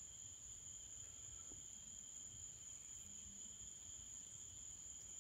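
Near silence: room tone with a faint, steady high-pitched whine.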